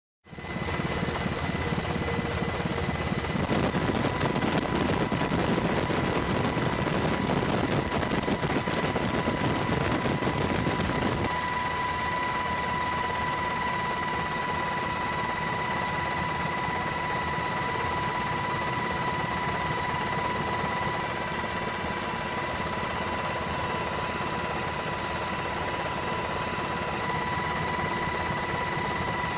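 Steady helicopter engine and rotor noise with a constant high-pitched whine. Its tone changes abruptly several times.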